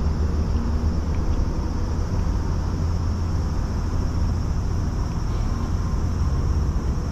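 Steady low outdoor rumble with a few faint soft clicks of a cat eating from a metal dish.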